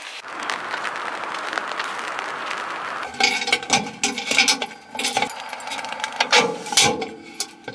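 A steady hiss of rain for about three seconds. Then a rapid run of clicks, clinks and knocks as keys jangle and a metal community mailbox door is unlocked and opened.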